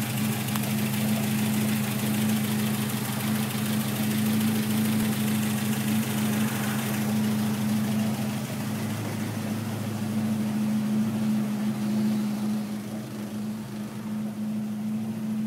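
1966 Hillman Gazelle's four-cylinder engine, converted to Megasquirt electronic fuel injection, idling steadily at an even pitch.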